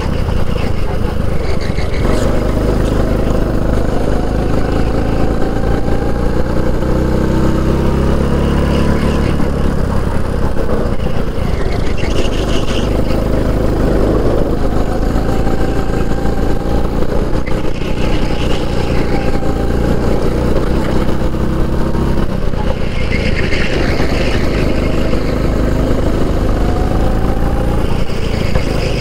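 Kart engine heard onboard at racing speed, its pitch climbing for several seconds along each straight and dropping sharply into the corners, several times over.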